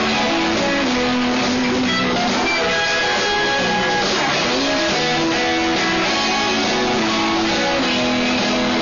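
Live blues band with electric guitars playing a Texas shuffle; a lead guitar holds long sustained notes that slide from pitch to pitch over the band.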